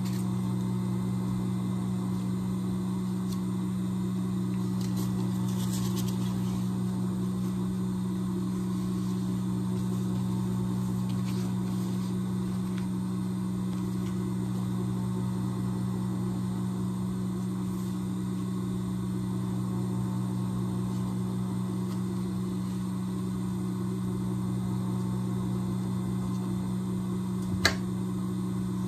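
Steady low electrical hum of an industrial sewing machine's motor running at idle, with one sharp click near the end.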